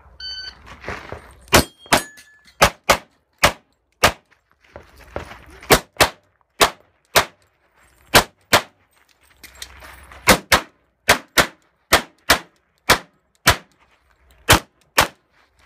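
Shot-timer start beep, then about two dozen pistol shots from a Glock, fired in quick pairs and short strings with a few brief pauses between them.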